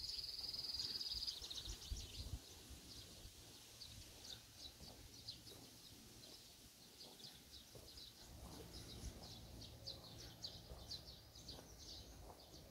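Small birds chirping faintly: many short, high chirps throughout, with a steady high trill in the first second or so.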